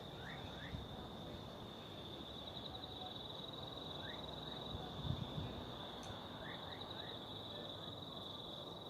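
A steady, high-pitched insect trill, typical of crickets or cicadas, with a few short rising bird chirps in twos and threes. There is a low thump about five seconds in.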